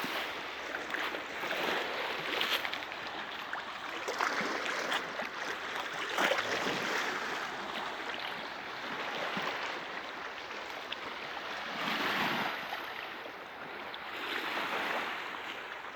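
Small sea waves washing onto the shore, swelling and fading every few seconds, with small splashes.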